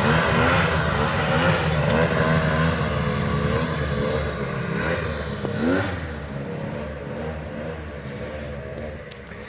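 Two-stroke 650 engine of a custom 1979 Polaris Centurion snowmobile, swapped in from a 1991 Polaris Indy 650, revving up and down repeatedly as the sled is ridden hard. It grows fainter in the second half as the sled moves away.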